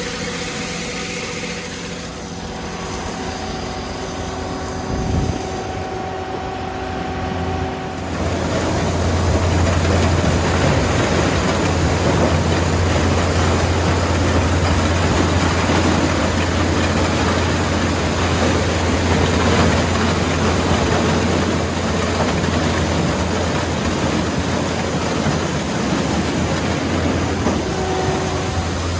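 Corn harvester's engine running steadily, with a low thump about five seconds in. About eight seconds in it grows louder and rougher, with a strong low drone and a rushing noise over it.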